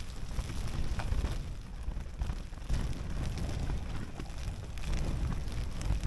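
Strong wind buffeting the microphone in uneven gusts, with scattered taps of rain hitting close by.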